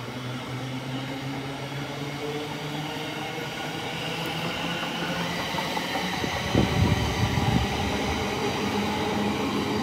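Thameslink Class 700 electric multiple unit pulling away from the platform, its traction motors humming with a higher whine building as it gathers speed. A run of loud wheel clunks over the track comes about two thirds of the way through.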